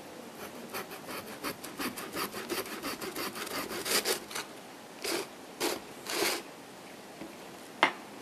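Chewing a salami pizza slice right at the microphone: a quick run of crunchy chewing strokes, then three louder, longer rasps, and a single sharp click near the end.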